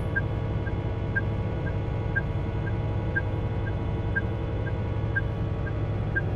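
Steady low drone of a truck running at motorway speed. Over it comes a short electronic beep about twice a second, alternating louder and softer: a countdown tone while the truck closes up to join a platoon.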